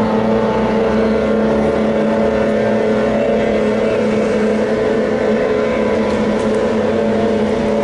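Several small 15 hp outboard motors running at full throttle, blending into a steady, loud drone with little change in pitch.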